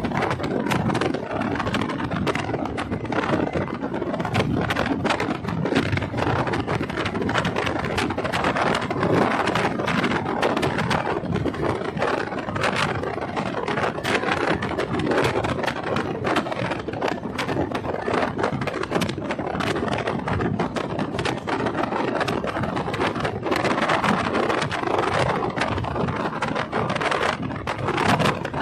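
Steady rumbling, crackling noise of a moving vehicle, thick with small clicks and scrapes and without a clear tone.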